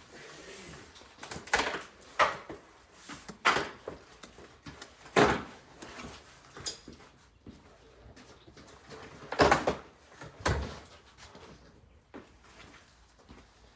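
Cardboard box being opened and unpacked: a series of sharp rips, scrapes and knocks of cardboard, with the loudest about nine and a half seconds in.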